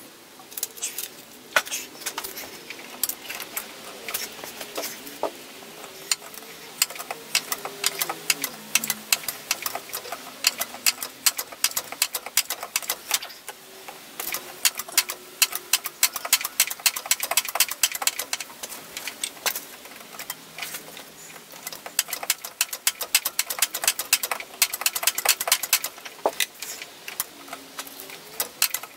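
Hand ratchet wrench clicking in quick runs, over and over, with short pauses between runs.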